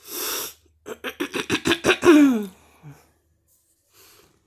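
A person's sharp, noisy breath at the start, then a quick run of voiced huffs, about seven a second, ending in a falling groan.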